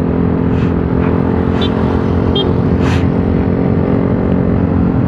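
Motorcycle engine running steadily at cruising speed, with wind and road noise; a few faint short clicks come in the first three seconds.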